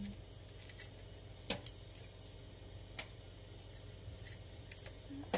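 Faint, scattered clicks and light taps of a boiled egg's shell cracking as it is peeled by hand, with the sharpest clicks about a second and a half and three seconds in.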